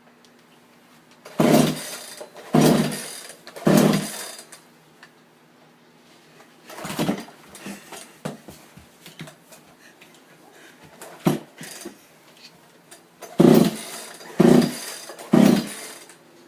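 A chainsaw being pull-started without catching: three quick pulls about a second apart, a single pull midway, then three more, each a short rasping burst that dies away at once.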